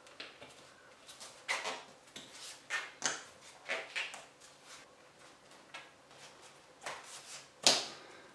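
Handling noises in a small room: irregular short scrapes and clicks, with one sharp knock near the end, from parts and tools being moved about.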